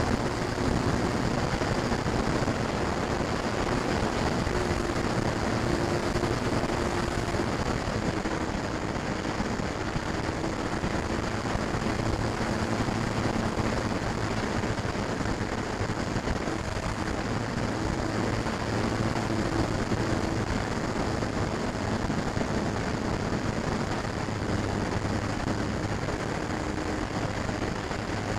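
Electric motor and propeller of a FlyZone Cessna 182 radio-controlled model plane in flight, heard from a camera on board under steady wind rush, with a low hum that wavers a little in pitch.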